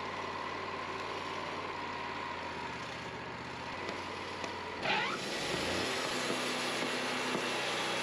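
Wood-Mizer LT40 portable sawmill's engine running steadily. About five seconds in there is a brief rising whine, and the sound changes to the band saw cutting through a Douglas fir log.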